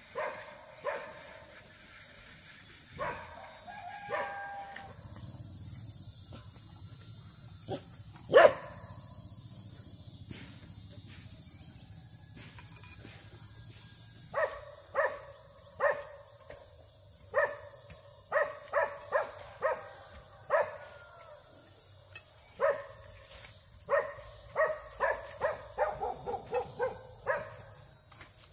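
A dog barking in bouts, with one loud sharp bark about eight seconds in, then a long run of barks over the second half that comes faster near the end. A steady high-pitched whine sets in about halfway through.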